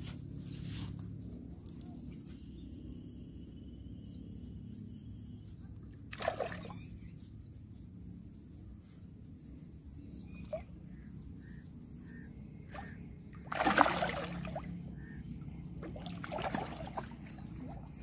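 A hooked fish thrashing and splashing at the water's surface. There are three short splashes: one about a third of the way in, the loudest about three-quarters in, and a smaller one soon after.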